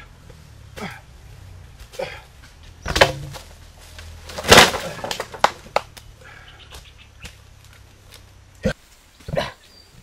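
A bundle of dry branches dropped onto the forest floor with a loud crash about four and a half seconds in, among scattered knocks and rustles of wood and footsteps.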